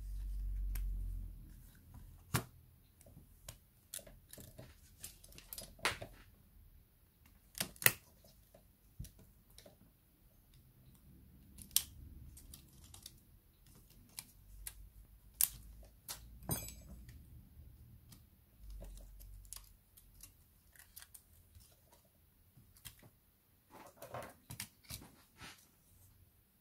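Irregular sharp clicks and taps of small tools and plastic parts being handled while a Samsung Galaxy Tab A T295 tablet is taken apart, with a few stretches of low handling rumble.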